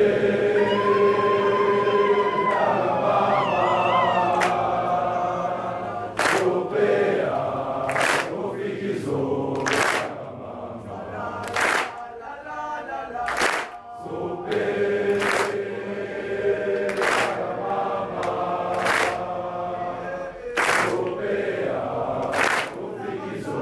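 A large body of schoolboys singing and chanting a school war cry in unison, with long held notes. From about six seconds in, a sharp unison clap comes about every two seconds.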